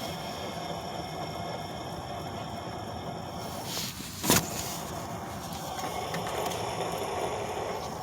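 Honda Civic Si engine running with a steady grinding rattle from the AC compressor clutch pulley, which the owner takes for a worn AC pulley. A single sharp click comes about four seconds in.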